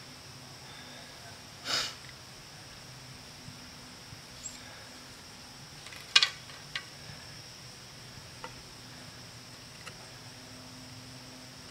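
A wooden hearth board set down hard: a sharp knock about six seconds in, a smaller knock just after, and a few light ticks as it is handled. A short rustle comes near the start. A steady high insect buzz runs underneath.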